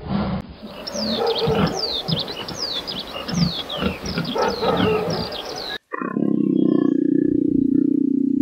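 Pigs grunting in short low grunts while small birds chirp in quick falling notes. About six seconds in, this cuts to a steady low growl from a leopard.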